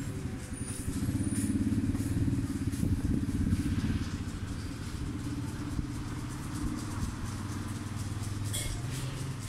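A steady, low engine drone, a little louder from about one to four seconds in.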